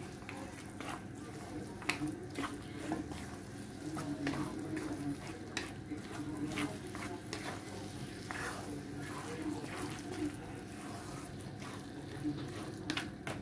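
Wooden spatula stirring and mashing thick semolina upma in a frying pan, with irregular scrapes and taps against the pan, over a soft sizzle from the cooking food.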